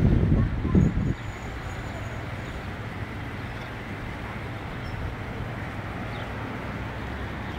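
Wind buffeting the microphone in gusts for about the first second, then a steady outdoor background hiss with a low rumble.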